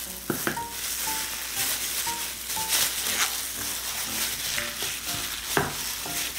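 A hand in a plastic glove mixing raw pork with thick gochujang marinade in a stainless steel bowl: a steady wet squishing and rustling, with a couple of sharper squelches or taps against the bowl. Light background music of short melodic notes plays underneath.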